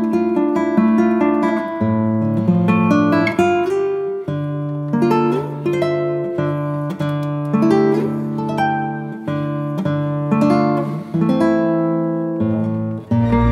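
Background music: acoustic guitar picking a melody of plucked, ringing notes over bass notes.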